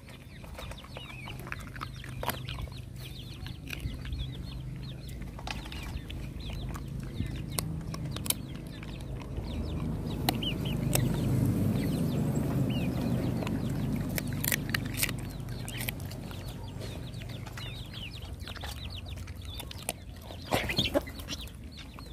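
A dog chewing and crunching bones from a metal basin, with sharp cracks throughout, loudest near the end. Chickens cluck in the background.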